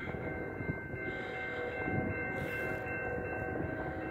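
Distant locomotive horn of the approaching Canadian National train, sounding a steady held chord over a low rumble.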